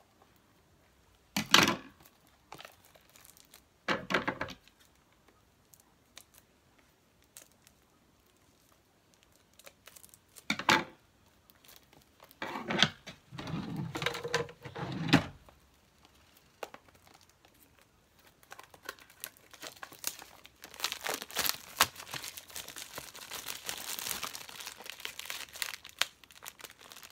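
Plastic seal wrap on a new phone box crinkling and tearing as it is peeled off, a dense crackle through the second half, after a few separate short rustles and taps of handling the box.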